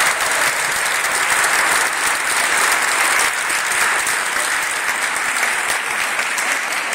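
Audience applauding: dense, steady clapping from many hands that tapers slightly toward the end.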